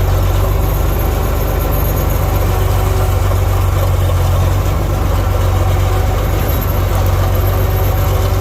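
Tractor diesel engine running steadily with a deep, even hum and no change in engine speed.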